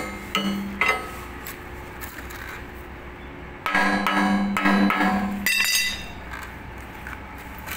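Metal being struck rapidly in three bursts, with a ringing steel tone under the blows. The longest burst comes about four seconds in and ends in higher metallic clinks.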